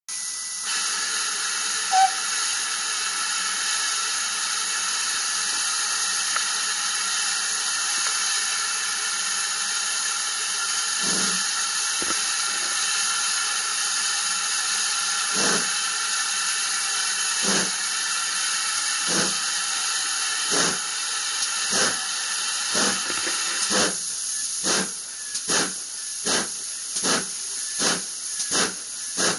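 Steam locomotive 'Foxcote Manor', a GWR Manor class two-cylinder 4-6-0, working a train. Steam hisses steadily throughout, with a brief high note about two seconds in. About a third of the way in, separate exhaust chuffs begin, slow at first, then closer together, until they come more than once a second near the end as the engine gathers speed.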